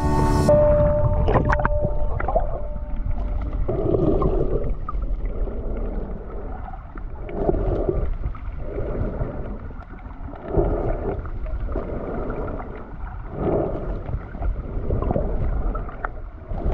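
Muffled underwater water noise on a submerged microphone: a low rushing with soft surges about every one and a half seconds.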